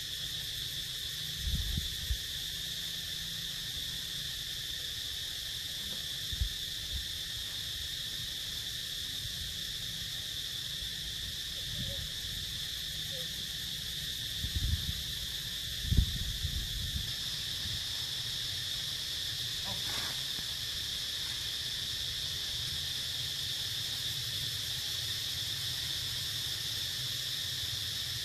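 Steady high-pitched drone of an insect chorus, unbroken throughout. A few short low thumps come through, the loudest about two-thirds of the way in.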